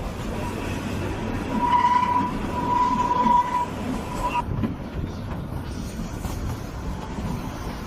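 Narrow-gauge Kalka–Shimla toy train running with a steady low rumble. About two seconds in, a high steady wheel squeal sets in and stops suddenly about four and a half seconds in.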